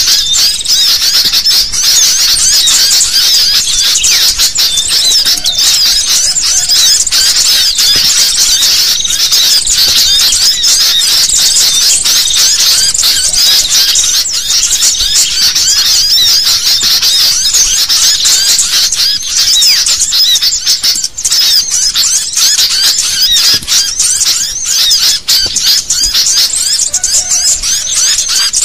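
Sooty-headed bulbuls (kutilang) chattering noisily as a flock: loud, dense, rapid overlapping chirps with no pause. This is an excited-chatter lure recording used to draw bulbuls in for trapping.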